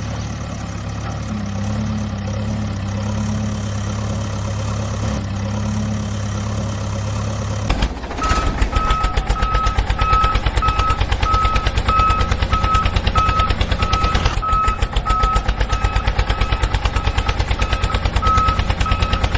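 A vehicle's motor running steadily with a low hum. About eight seconds in it switches abruptly to a fast, even clatter with a high beep repeating about once a second, like a reversing alarm.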